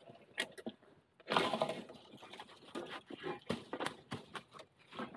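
Irregular crackling and snapping of dry leaves and twigs in forest undergrowth, with a denser rustle about a second in.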